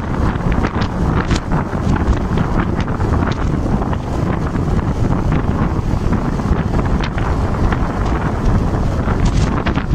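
Wind buffeting a phone's microphone on a moving scooter: a loud, steady rumble with frequent crackles.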